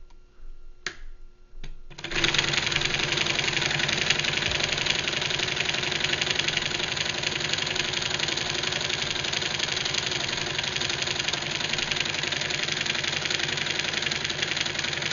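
Four-piston electromagnetic pulse motor (the Sotropa Motor) switched on: two clicks about a second in, then the motor starts and runs steadily with a fast, even rattle from its reciprocating pistons.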